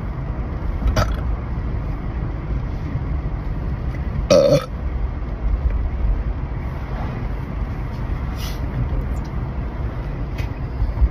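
A woman burps loudly once, about four seconds in, with short, sharp hiccups before and after it, over a steady low rumble.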